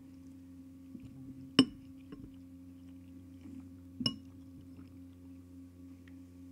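A metal fork clinks sharply against a dish twice, about two and a half seconds apart, with a brief ring each time. Under it runs a steady electrical hum.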